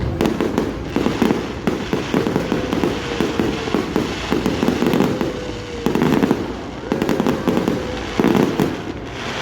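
Fireworks crackling: dense clusters of rapid pops, coming in about six separate bursts, each lasting under a second to a second and a half.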